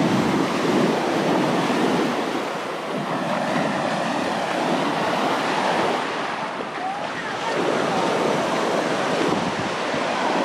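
Sea waves washing onto a beach, the noise swelling and easing, with wind buffeting the microphone.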